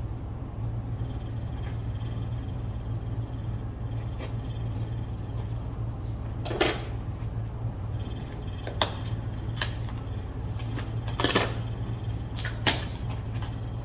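Cardboard shipping box being opened: several short rips and scrapes of packing tape and cardboard flaps in the second half, the strongest a couple of seconds before the end, over a steady low hum.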